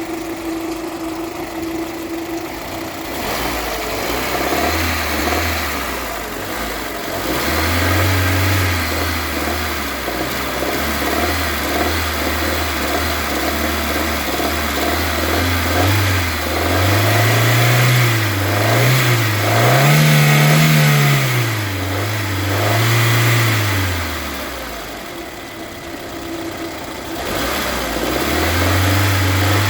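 Citroën C3 engine idling, then revved up and down in several swells, the highest about two-thirds of the way through, before settling back to idle. It is run through the 1500–2000 RPM range where the engine is said to knock.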